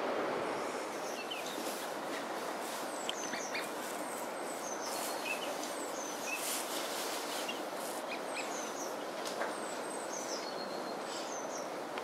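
Birds calling: a scattered run of short high chirps and quick falling whistles, over a steady rush of wind and water.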